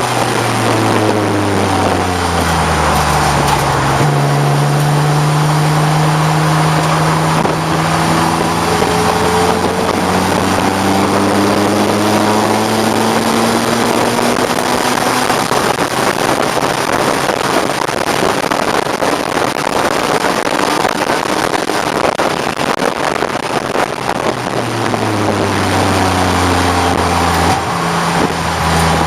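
BMW 535i race car's M30 straight-six engine at racing speed over a steady rush of noise. The revs fall for the first few seconds, jump at a downshift about four seconds in, then climb steadily for about ten seconds as the car accelerates. Near the end the revs fall again and jump at another downshift.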